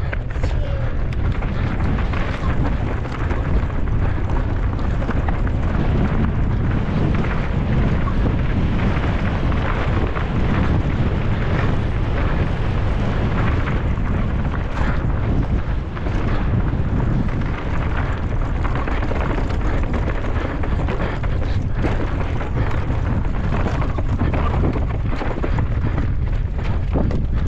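Wind buffeting the microphone of a camera on a downhill mountain bike at speed, with the tyres rolling over a rocky dirt trail and the bike rattling over bumps in many short clicks.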